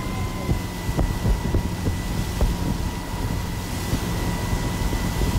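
A motorboat's engine running steadily at towing speed, with wind buffeting the microphone and the wake churning behind. A thin, steady high whine runs underneath.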